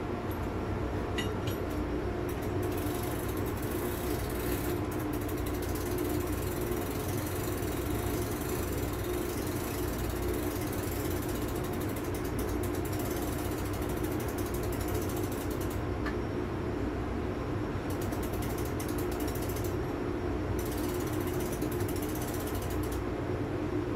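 Ratchet of a marine emergency generator's mechanical spring starter clicking rapidly as the cranking handle is turned to wind the spring, in long stretches broken by a couple of brief pauses, over a steady machinery hum.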